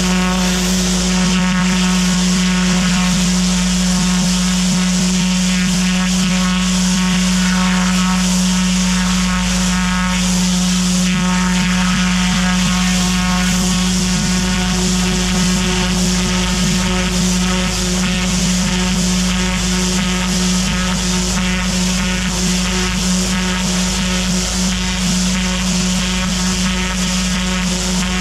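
Pressure washer cleaning block paving: its engine and pump run steadily under load, with the hiss of the high-pressure water spray on top.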